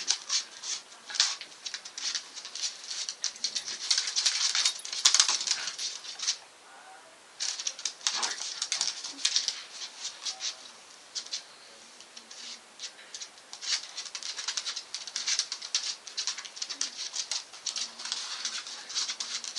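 Scuffling and rapid clicking of a Staffordshire bull terrier's and a Jack Russell terrier's claws and paws on a hard floor as they tussle in play. The clicks come in irregular flurries, with a short pause about six seconds in.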